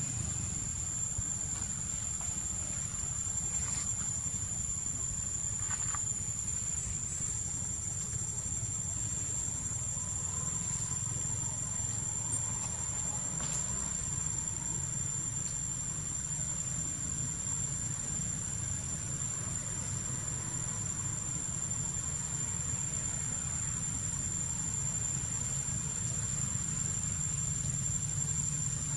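Steady high-pitched insect chorus, a continuous shrill drone that never breaks, over a low steady rumble, with a few faint clicks.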